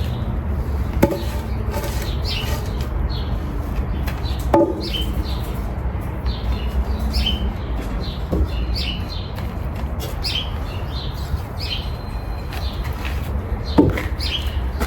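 Small birds chirping, many short falling chirps scattered throughout, over a steady low hum of a large store interior. A few sharp knocks, about four, from wooden 4x4 fence posts being handled.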